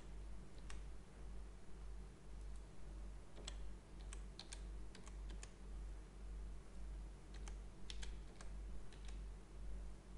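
Computer keyboard keys tapped in short, irregular clusters as numbers are typed into fields, over a steady low electrical hum.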